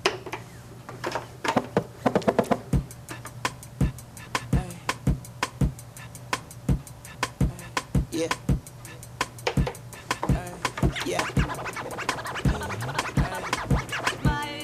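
A hip-hop beat played back through DJ software from a turntable with a control record, with record scratches, dense clicks in the first couple of seconds and then steady drum hits about every two-thirds of a second. Near the end a second track with held chords is mixed in.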